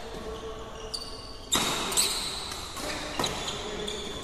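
Badminton rally in a large echoing hall: a run of sharp racket strikes on the shuttlecock, about five, with the two loudest about a second and a half and two seconds in.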